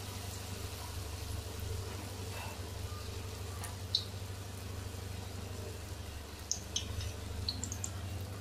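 Besan-batter-coated aloo tikki deep-frying in hot oil in a kadhai: a steady soft sizzle with a few small pops, one about four seconds in and several near seven seconds, over a low steady hum.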